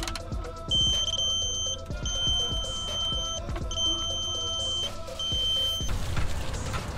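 Electronic torque wrench beeping in four long, steady high tones with short gaps, signalling that the steering-rack-to-subframe bolts are reaching their set torque and angle.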